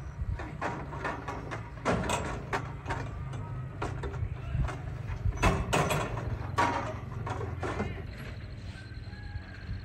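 Metal stools and chair frames clanking and clattering against each other as they are handled and unloaded from a truck bed, in irregular knocks over a low steady rumble.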